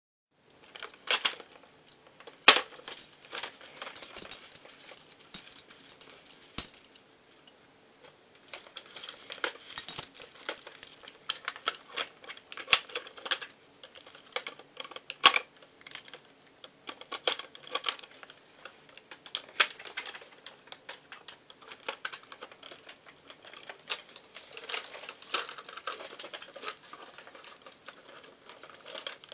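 Plastic Nerf Maverick dart blasters being handled and turned over: irregular light clicks and rattles of their plastic parts, with a few sharper snaps spread through.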